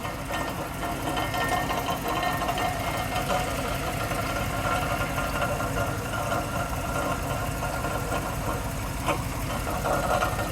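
2002 Cadillac Escalade EXT engine running with a steady, rapid knocking noise whose source the owner can't find; the owner's partner suspects the transmission. A single sharper click comes about nine seconds in.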